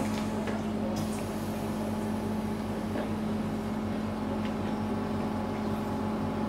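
Steady hum of a running oxygen generator supplying an anaesthetic mask, with a few faint clicks from handling.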